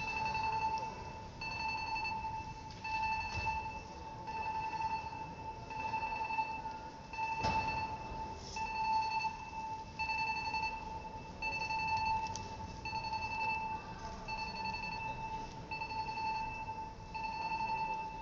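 Warning beeper on a moving depot traverser carrying a railway bogie: an evenly repeated electronic beep, about one every second and a half, that warns the traverser is in motion. A single sharp knock comes about halfway through.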